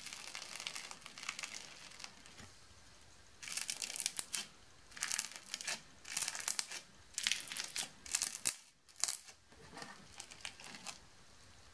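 Slime crackling and squelching as a perforated stainless-steel pasta strainer is pressed into it and lifted off, the slime squeezing through the holes. Faint at first, then from about three and a half seconds in a run of short crackly spells about once a second, weaker near the end.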